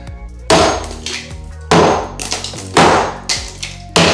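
Hammer striking ceramic shower wall tile four times, about a second apart, each blow a loud sharp crack with a short ring as the tile breaks.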